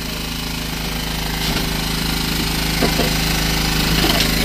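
Engine running steadily with a fast, even pulsing beat, growing slightly louder.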